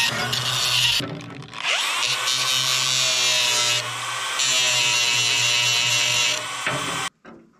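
Angle grinder working a rusty steel axle, cleaning the rust off. The motor dips about a second in and winds back up with a rising whine, runs steadily, then cuts off sharply near the end.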